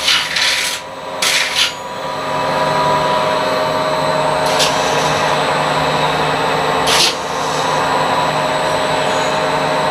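CNC metal spinning machine forming a stainless steel cake pan: the roller tool presses against the spinning steel blank, making a steady rubbing, grinding noise over a machine hum. A few short, sharp scrapes come in the first two seconds, then once about halfway through and again about two-thirds of the way in.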